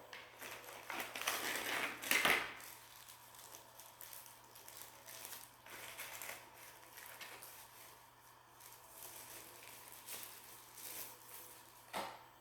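Plastic packaging crinkling and rustling as small items are handled and pulled out. The rustling is loudest about two seconds in, with a short sharper crinkle near the end.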